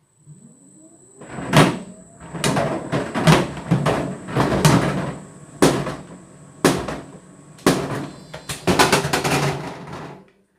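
Tumble dryer drum spinning up with a rising motor whine, then a hard object tumbling inside, banging loudly against the drum and door glass about once a second, faster near the end, over a steady high-pitched whine. It stops suddenly near the end.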